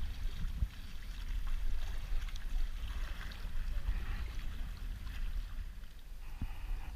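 Kayak paddling on choppy water: the paddle blades dip and splash alongside the hull, with a steady low rumble of wind on the microphone underneath.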